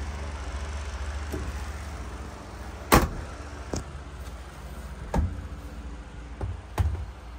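Steady low hum of a running laundry appliance, with a handful of sharp knocks and bumps from laundry and a plastic basket being handled, the loudest about three seconds in.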